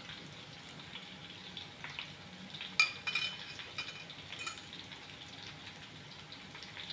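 A pot of meatball soup simmering on a gas burner, with faint popping bubbles. About three seconds in a metal ladle clinks sharply against the pot and rings briefly, followed by a lighter clink a second or so later.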